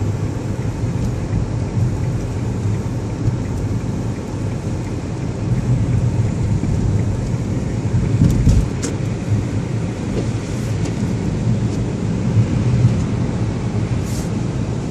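Steady low rumble of a car driving on a snow-covered street, engine and tyre noise, with a heavier thump about eight seconds in.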